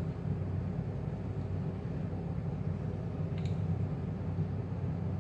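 Steady low hum of a running fan, even and unchanging, with a faint click about three and a half seconds in.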